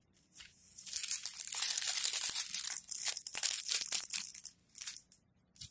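Small plastic bags of diamond-painting drills crinkling and crackling as they are handled and shuffled, for about four seconds.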